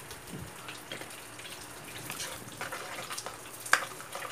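Ketchup sauce simmering and bubbling in a steel wok, with scattered small pops. Near the end comes one sharp knock, as a utensil hits the wok when stirring begins.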